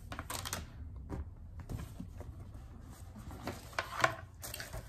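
A shoe box and its lid being handled and opened: scattered taps, scrapes and rustles, with the sharpest knock about four seconds in.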